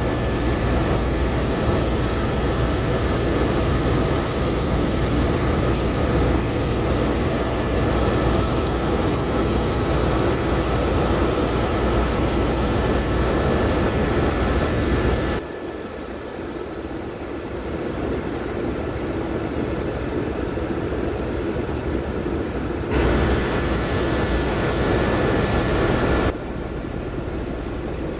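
Helicopter in flight heard from inside the cabin: a steady engine whine over a low rotor drone. About halfway through the high end of the noise drops away abruptly, comes back, and drops again a few seconds before the end.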